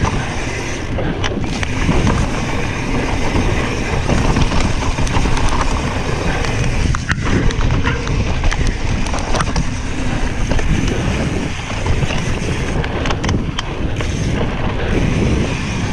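Mountain bike riding fast down a dirt trail: tyres rumbling over the ground and wind buffeting the microphone, with a few sharp clicks and rattles from the bike about midway and again near the end.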